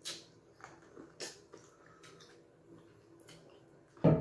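Close-up eating sounds of fufu and light soup eaten by hand: short wet smacks, slurps and squelches coming a few at a time. Near the end there is a much louder double thump.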